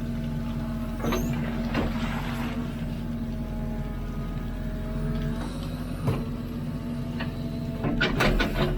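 Hidromek 102B backhoe loader's diesel engine running steadily while digging, with several clanks and scrapes of the bucket on stony ground, a cluster of sharper clanks near the end.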